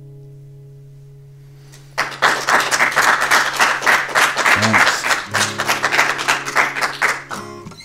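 Final chord of an acoustic guitar ringing out and fading. About two seconds in, a small group breaks into clapping with a few voices cheering, lasting about five seconds.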